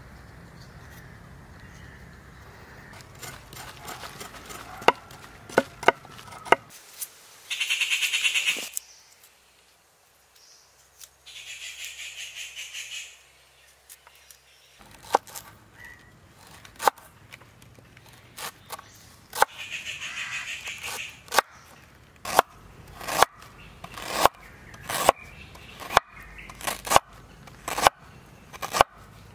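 A large knife scraping the skin off a piece of ginger in short rasping strokes, with scattered small clicks. In the last seven seconds the knife chops ginger and garlic on a cutting board, sharp chops about one a second.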